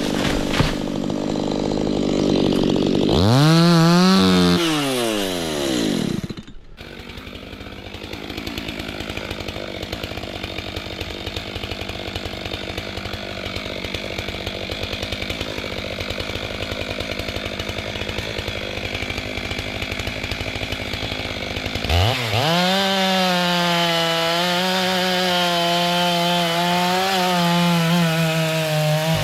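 Two-stroke chainsaw revved briefly, then dropping back to a fast, steady idle for about fifteen seconds. About 22 seconds in it is opened up to full throttle and held there, its pitch wavering as it works through the kapok wood.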